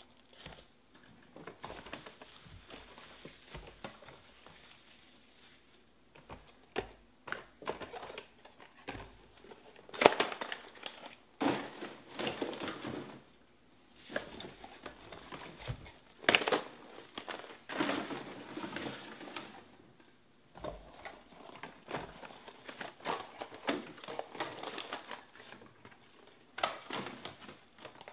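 Foil trading-card packs being handled: crinkling and rustling in irregular bursts, with sharp clicks and taps as packs are set down.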